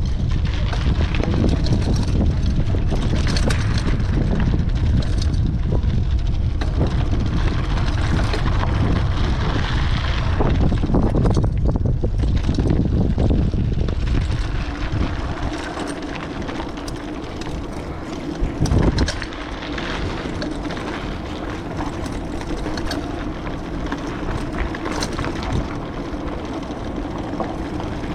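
Wind buffeting the microphone of a camera on a moving bicycle, a heavy low rumble mixed with rolling and road noise. It eases about halfway through, leaving a steadier hum.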